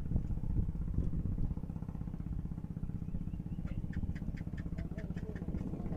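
A small engine running steadily with a low, evenly pulsing rumble. Midway through, a quick run of sharp clicks, about four a second, goes on for a couple of seconds.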